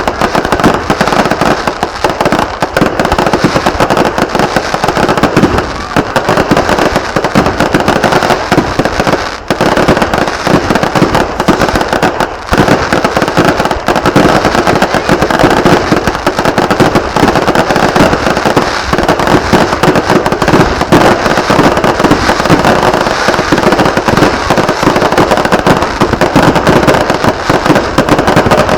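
Fireworks going off in a dense, continuous barrage of crackling and banging, with no let-up apart from a few brief dips.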